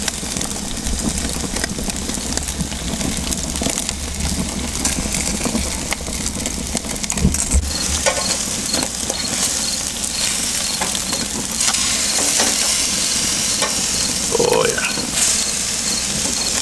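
Whole porgies sizzling on a charcoal grill over open flames, with a steady hiss and fine crackles. The sizzle grows louder about halfway through, and a low hum sits under the first half.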